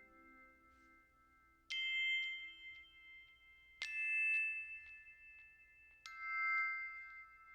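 Background music: three slow, ringing bell-like notes, about two seconds apart, each left to fade.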